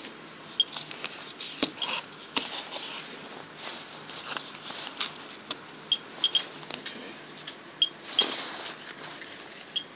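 Radiation contamination meter giving short, high chirps at irregular intervals, a few here and there, at background radiation level. Rustling and scraping from the pendant's gift box being handled.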